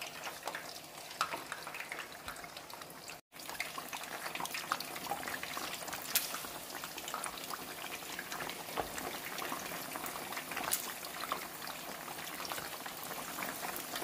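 Whole quails deep-frying in hot oil: steady sizzling and bubbling, dotted with many small crackles and pops. The sound cuts out for an instant about three seconds in.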